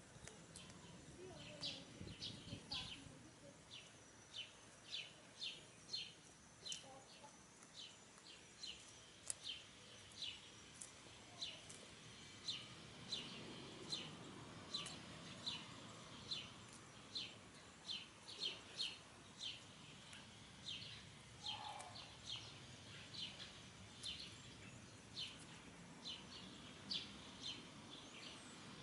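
A small bird chirping over and over: short, high chirps at about two a second.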